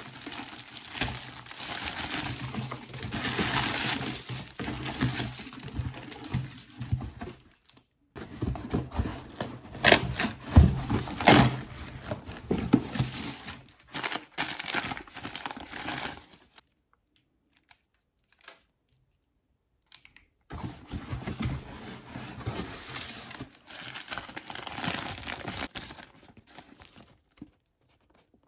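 Crumpled plastic bags crinkling and rustling in irregular bursts as hands pull them out of a cardboard box. About halfway through there are a few seconds of near silence, then the crinkling starts again.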